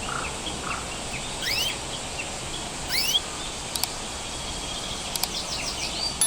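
Canary chirps over a steady hiss: a few short, rising calls spaced out, a couple of sharp ticks, then a quick run of chirps near the end.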